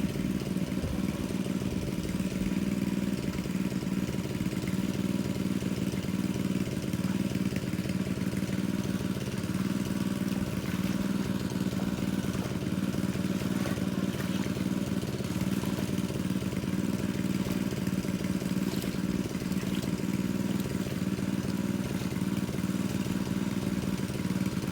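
Engine of a large water pump running steadily at a constant speed.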